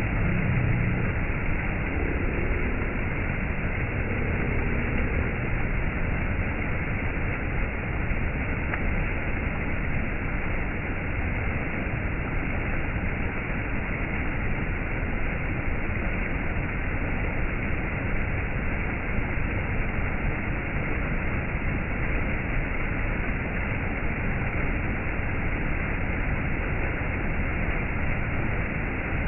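Waterfall cascading: a steady, unbroken rush of falling water.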